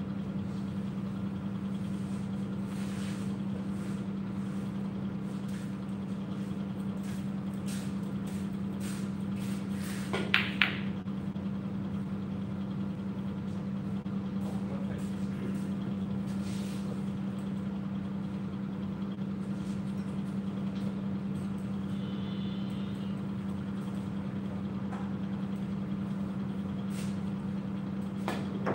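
Pool balls clacking over a steady low hum: about ten seconds in, a cue strikes the cue ball and two or three sharp knocks follow as balls collide. Another shot clicks near the end.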